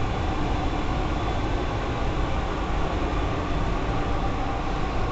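Boiler-room plant running: a steady low mechanical drone with a hiss over it, no single event standing out.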